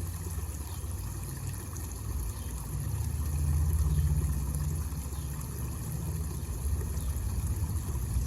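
Water from a small homemade waterfall trickling and splashing into a basin steadily, under a low rumble that swells about three seconds in and eases off again.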